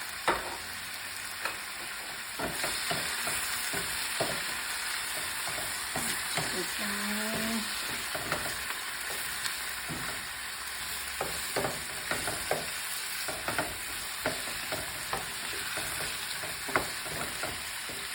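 Chicken wings sautéing with onion and garlic in a pan: a steady sizzle of frying, with a utensil stirring and knocking against the pan in many short clicks.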